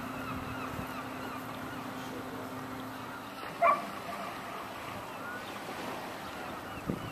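Gulls calling, a chorus of short repeated calls with one loud, short call about halfway through. A steady low hum fades out around three seconds in.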